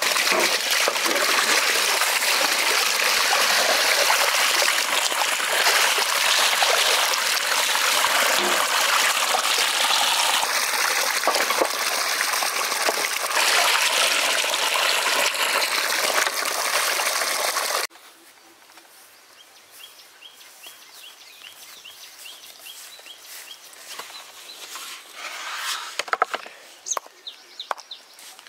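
Loud, steady rush of running water that cuts off suddenly about two-thirds of the way through. The quiet that follows holds a run of faint, evenly repeated high chirps and a few sharp clicks near the end.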